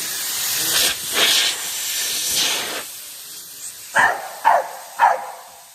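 Hissing spray of water in several surges, then a dog barking three times in quick succession near the end.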